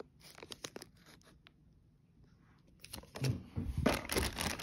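Clear plastic parts bags from a model car kit crinkling and rustling as they are handled: a few sharp crackles at first, then louder, denser rustling from about three seconds in.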